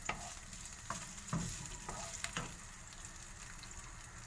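Sliced spicy chorizo sizzling in a frying pan as it browns, stirred with a wooden spatula that knocks and scrapes against the pan several times in the first two and a half seconds; after that only the steady sizzle.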